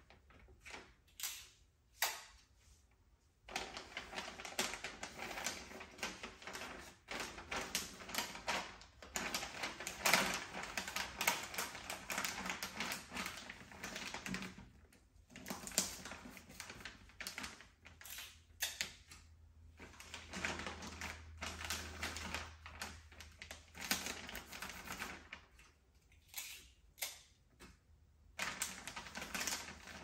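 Gift wrapping paper being handled by hand: crisp crinkling and crackling in long spells of dense small clicks, broken by short pauses.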